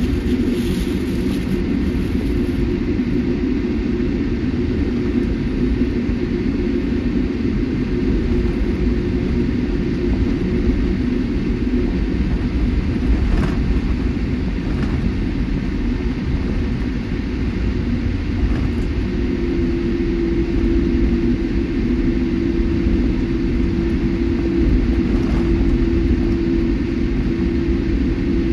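Cabin noise inside a Boeing 787-8 airliner: a steady low rumble of the engines and airflow. A steady hum joins about two-thirds of the way in, and there are a few faint ticks.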